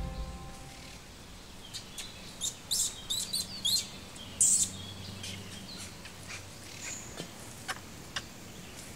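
Small songbirds chirping: a quick run of short, high chirps from about two to five seconds in, then a few scattered calls, over faint forest background. Background music fades out at the very start.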